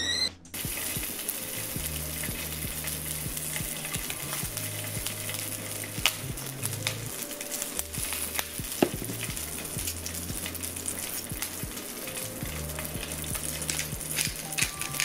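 Food sizzling in a hot pan, a steady frying hiss with scattered sharp clicks and taps from stirring.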